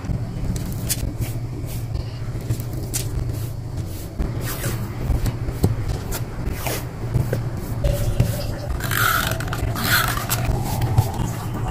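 Hands working paper and stationery on a journal page: scattered light taps and clicks, then scratchy rustling and scraping strokes from about nine seconds in, over a steady low hum.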